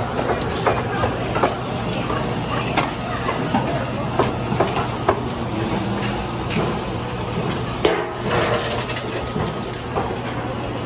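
An electric meat grinder's motor hums steadily while stainless steel basins and utensils clink and knock many times over it.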